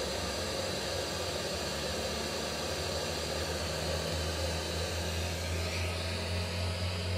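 FM static from a Sihuadon R-108 portable radio tuned to 71.55 MHz, a steady hiss with a low hum under it. There is no station on this frequency, which marks the signal the Lijiani RD239 receives there as a spurious image of a real 107.5 MHz broadcast.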